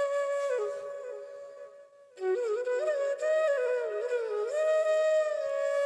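Background music: a slow, solo flute melody of held and gliding notes. The phrase fades away about one and a half seconds in and a new phrase starts just after two seconds.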